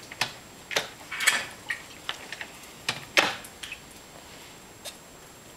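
Irregular mechanical clicks and clunks from a high-compression Monkey bike's kickstart being worked while the engine is not running, with about nine knocks and the loudest about three seconds in. The engine has just failed to start.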